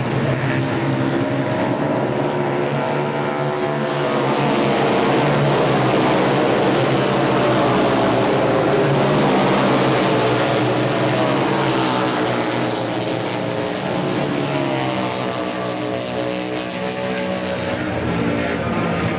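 Several flat-track racing motorcycles running at speed, their engines overlapping, with the pitch rising and falling as they go around the track. The sound swells a little louder in the middle and eases off again.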